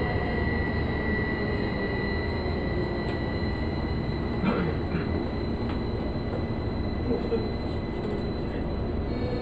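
Onboard running noise of a Tokyo Metro 05 series subway car with permanent-magnet synchronous motors (PMSM), slowing on the approach to a station: a steady rumble of wheels on rail, with a faint motor whine that falls slightly in pitch and a high tone that fades out about three seconds in.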